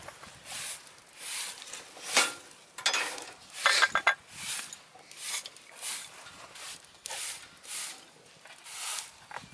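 Scrap lumber burning in a wood stove, crackling and popping in quick irregular snaps, with the loudest cluster of pops about four seconds in.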